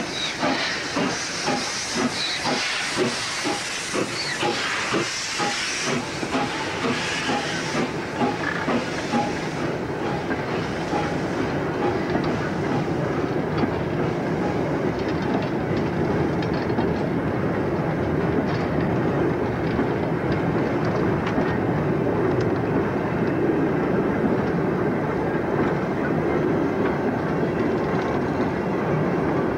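Steam tank engine No.1 Thomas, an 0-6-0T, pulling away close by, its exhaust chuffing in regular beats with a loud hiss of steam. After about eight seconds the beats fade and a rake of goods wagons rumbles and clatters steadily past over the rail joints.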